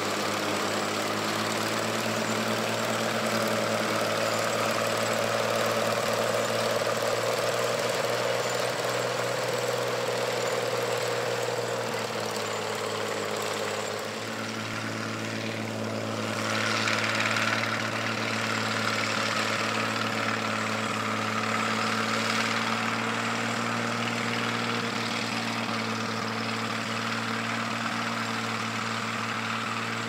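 1959 John Deere 95 self-propelled combine running steadily while harvesting wheat: an even engine note with the noise of the threshing machinery over it. There is a slight change in pitch a little before halfway, and the sound grows briefly louder and hissier just past halfway.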